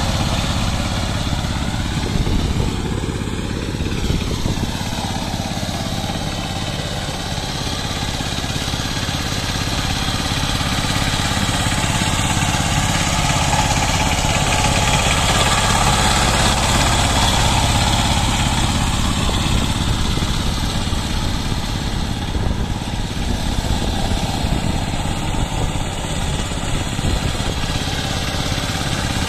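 Two-wheel power tiller's single-cylinder diesel engine running steadily as the machine works its rotavator through a flooded, muddy paddy field. There is a brief waver in pitch a few seconds in.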